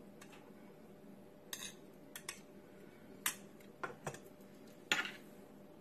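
Metal spoon clinking and scraping against a ceramic plate of rice, then the plate being set down on the counter: about eight short, scattered clinks, the loudest near the end.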